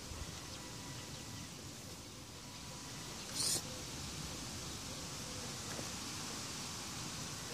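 Steady outdoor hiss with the faint, thin electric whine of a radio-controlled crawler's motor and speed controller, which stops about a second and a half in. About three and a half seconds in comes one short, high-pitched chirp, the loudest sound here.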